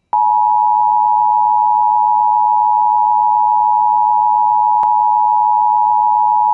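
Emergency Alert System attention signal: the steady two-tone alarm (853 and 960 Hz together), sounding continuously at a constant level over light hiss. It marks the start of an emergency alert, here a severe thunderstorm warning.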